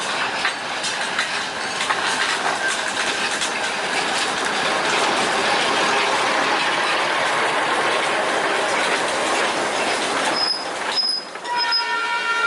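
Sugar-cane railway train rolling past with its wheels clattering over the rail joints. A few short high wheel squeals come about two seconds before the end. Then the locomotive's horn starts a long, steady blast.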